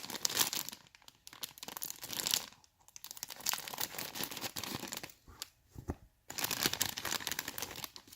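Thin plastic bags holding a model kit's parts crinkling and rustling as they are handled, in several stretches with short pauses between them.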